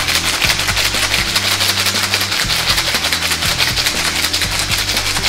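Ice rattling hard inside a metal cocktail shaker being shaken fast and steadily, many strikes a second, to chill the cocktail until the shaker frosts. Background music plays underneath.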